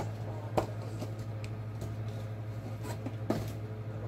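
Items being taken out of a bag and handled: a few scattered clicks and rustles, the sharpest about half a second in, over a steady low hum.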